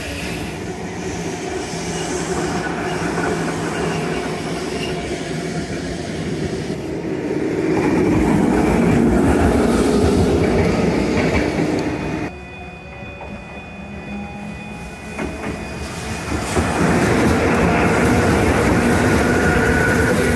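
Randen (Keifuku Electric Railroad) tram cars running past on the track, in several separate passes. The rolling rumble swells about 8 seconds in, drops off suddenly near the middle, and rises again close up near the end.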